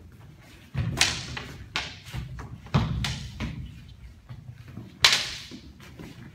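Sparring with training swords: several sharp knocks and swishes as the saber and the ginunting blades strike and swing, mixed with feet stamping on a wooden floor. The loudest strikes come about a second in and near five seconds in.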